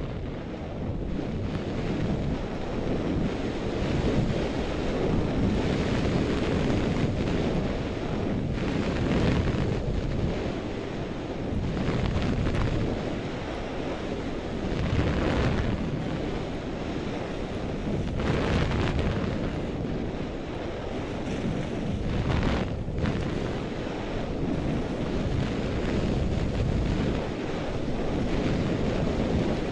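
Wind rushing over a goggle-strap-mounted action camera's microphone while skiing downhill, a steady low rumble. Skis scraping across packed, tracked snow add a hiss that swells briefly every few seconds, with each turn.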